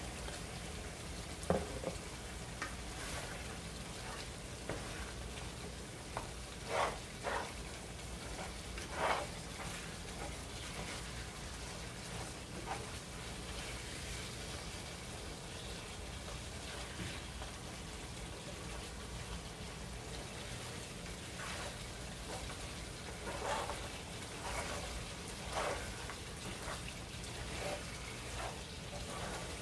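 Spiced beef sizzling in a non-stick pan as it is fried down, stirred with a wooden spatula, with short scrapes and knocks of the spatula against the pan now and then.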